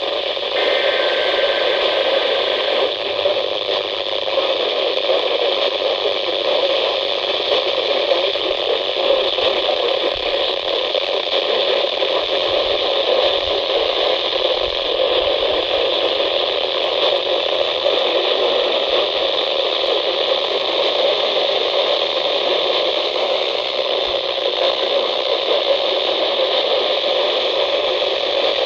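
Radio static: a steady hiss from a weather-band radio receiver picking up no clear station. A faint steady tone sits under the hiss for the first few seconds.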